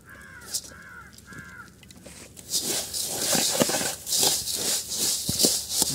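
A bird calls three times in quick succession. Then, from about two and a half seconds in, a hand tosses and mixes dry puffed rice in an aluminium bowl, a loud, dense rustling rattle of the grains.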